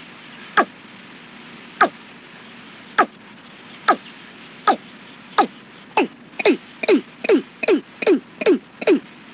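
Watercock call: a series of short notes, each falling quickly in pitch, spaced more than a second apart at first and speeding up over the second half to two or three a second, over a faint steady hiss.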